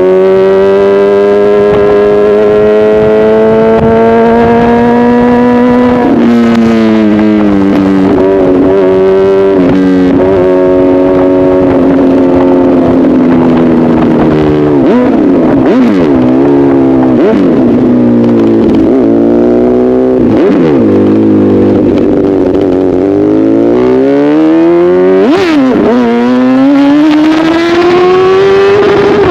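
Honda CBR1000RR inline-four engine running loud through an SC-Project aftermarket exhaust. The revs climb for about six seconds and drop sharply with a gear change, then rise and fall quickly several times in the middle, then climb steadily again near the end.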